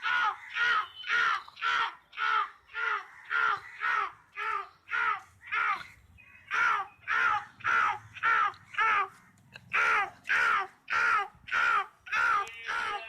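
A person imitating a crow, giving a fast, even run of harsh caws, about two or three a second, with a short pause about six seconds in.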